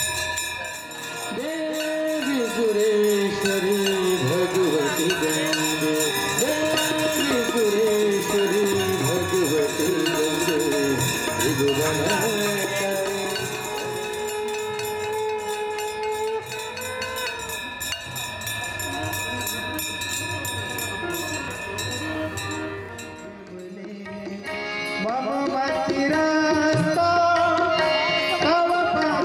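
Hindu aarti hymn sung by a voice over drums and continuously ringing bells and clanging percussion. The sound dips briefly about 23 seconds in, then the singing picks up again.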